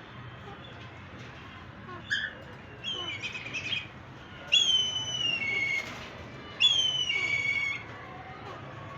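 Alexandrine parakeets calling: a short call about two seconds in, then a pulsing call, then two longer, louder calls, each sliding down in pitch.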